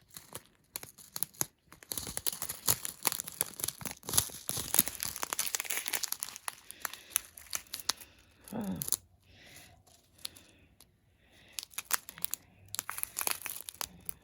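Small plastic packets of diamond-painting drills crinkling as they are handled, in irregular bursts of crackles.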